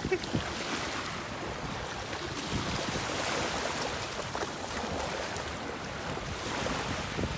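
Small waves lapping and washing onto a sandy shore, a steady wash of surf in shallow water.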